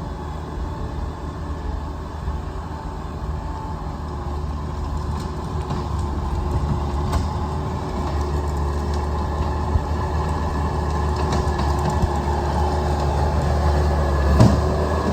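Heavy earthmoving machine's diesel engine running steadily, slowly growing louder, with a single knock near the end.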